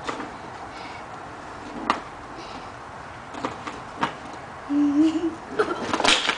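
Child's inline skates on a concrete sidewalk: a few scattered clicks and knocks from the skates, a short low-pitched sound about five seconds in, then near the end a burst of loud knocks and scrapes as the skater falls onto the pavement.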